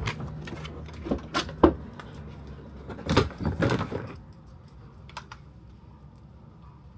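Handling noises: a series of sharp clicks and knocks through the first four seconds, then quieter, with one more light click a little after five seconds.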